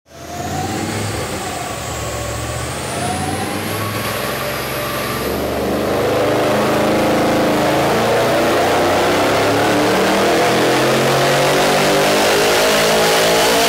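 Supercharged GM LS V8 engine running hard, its pitch drifting slowly upward and getting louder about six seconds in.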